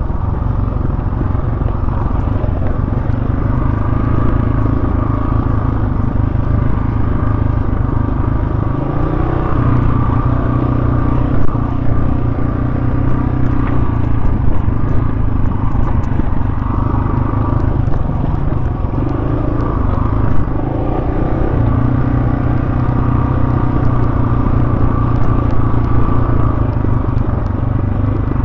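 Dirt bike engine running under way on a rough trail, heard from the bike itself, its revs stepping up and down as the rider works the throttle and gears. A couple of sharp knocks stand out, one about a third of the way through and one about two-thirds.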